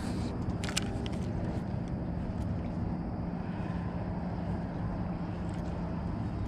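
A boat motor running steadily with an even low hum. A couple of short clicks come about a second in.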